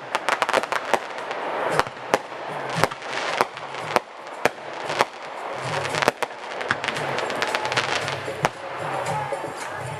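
Fireworks going off: dense crackling with many sharp cracks and bangs scattered throughout.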